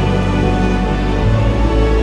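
Background music: sustained held chords, with the bass note changing a little over halfway through.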